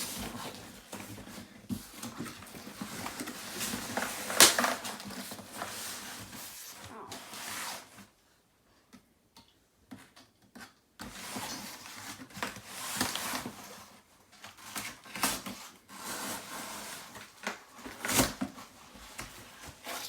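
Cardboard box and packaging being handled and pulled open: irregular rustling and scraping with sharp knocks, the loudest about four seconds in, and a near-silent pause of a few seconds midway.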